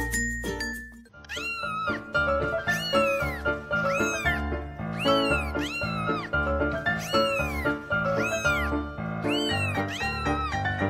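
Background music with cat meows, each a short rising-then-falling call, repeated about once or twice a second in time with the beat, starting about a second in.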